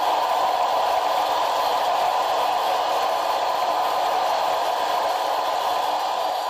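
Large crowd cheering and applauding in a steady mass of noise, with no pauses.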